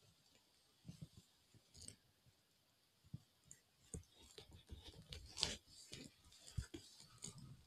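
Near silence broken by faint scattered clicks and rustles, sparse at first and more frequent in the second half, the loudest about five and a half seconds in.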